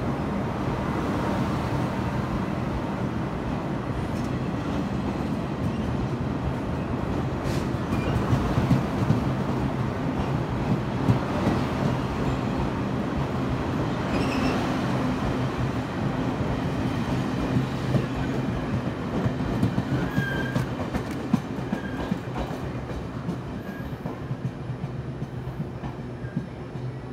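Locomotive-hauled Chu-Kuang express train pulling out and rolling past, with a steady low hum and wheels clicking over rail joints; the sound eases off over the last few seconds as the train moves away.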